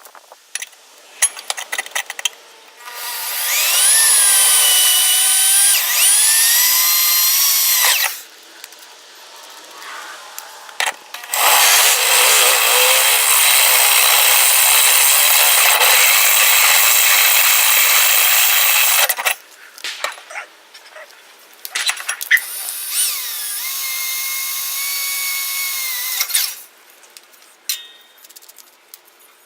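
Handheld power tool run in three bursts, its motor whine dipping and recovering as it bites into the work. The middle run is the longest and loudest, and there are small clicks and knocks between the runs.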